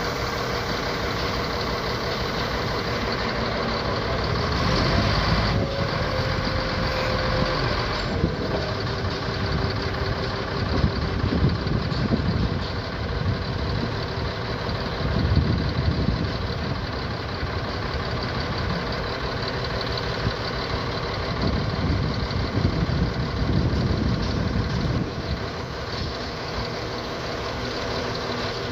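Caterpillar D7G bulldozer's diesel engine running continuously, swelling and easing in loudness as it works. A short steady tone sounds about six seconds in.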